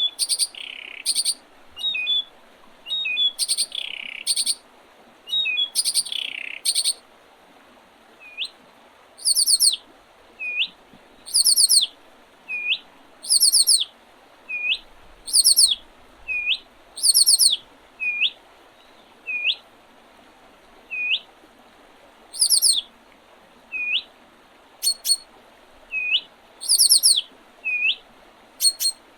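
Spring songbirds singing: one bird repeats a short upturned call note about once a second, while high, thin, rapid trills come in bursts. Louder, longer falling notes sound over the first few seconds.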